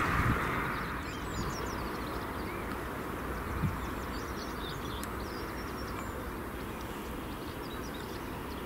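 Many small birds chirping and twittering over a steady low outdoor rumble. A louder hiss fades away within the first second.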